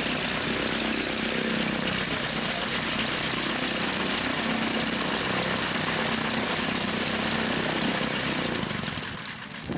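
Light biplane's piston engine and propeller running at low power while it taxis; steady, then fading near the end.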